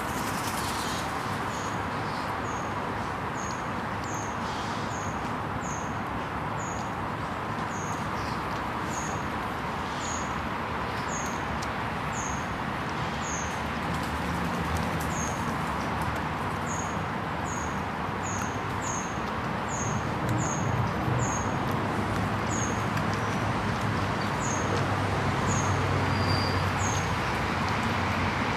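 A small bird calling over and over with short, high chirps that slide down in pitch, about one or two a second, over a steady background hiss and rumble that grows louder near the end.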